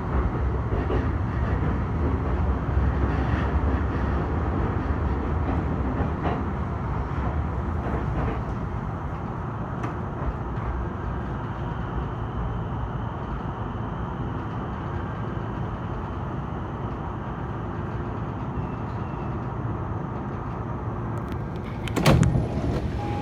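JR Saikyo Line commuter train heard from inside the car, running and slowing into a station, its rumble easing off. Near the end a sudden loud burst as the sliding doors open.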